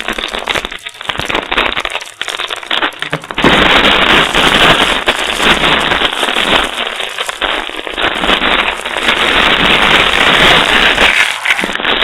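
Loud, harshly distorted crackling noise, dense and continuous, jumping louder about three and a half seconds in.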